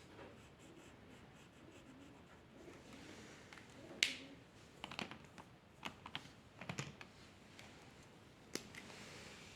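Drawing tools handled on a desk: a scattering of sharp clicks and taps, the loudest about four seconds in, a cluster of them a second later, and one more near the end.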